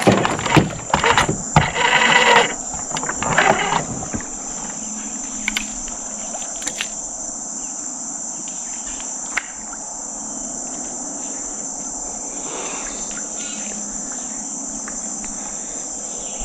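Steady high-pitched insect chorus, a continuous chirring. Over the first four seconds it is mixed with louder rustling and a few knocks.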